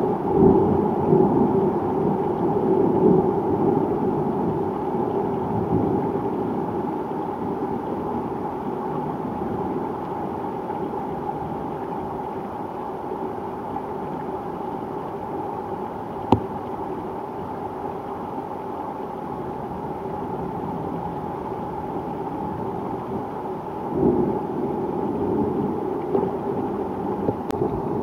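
Thunderstorm: steady rain with rolling thunder, the rumble strongest over the first few seconds, then dying down, and swelling again near the end. A single sharp tick comes about halfway through.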